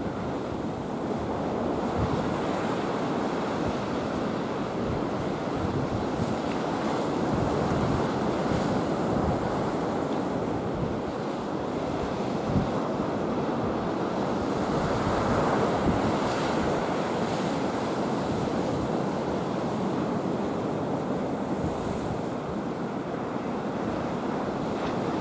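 Steady rush of wind and choppy, breaking waves, with wind buffeting the microphone in low thuds.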